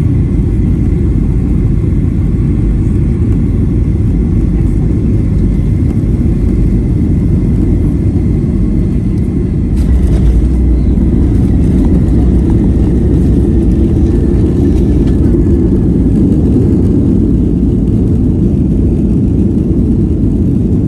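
Cabin noise inside a Southwest Airlines Boeing 737 during landing: a loud, steady low rumble of engines and airflow. About ten seconds in it jumps louder and rougher, then stays at that level.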